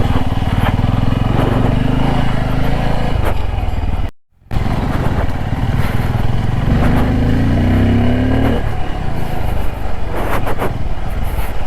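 Motorcycle engine running under way, with the pitch rising as it revs up about seven seconds in. The sound cuts out briefly about four seconds in.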